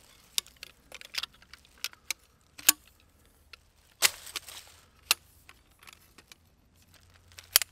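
Sectioned metal tent pole being unfolded and its sections snapped together: a series of sharp metallic clicks and clacks, with the loudest about a third of the way in, about halfway, and near the end.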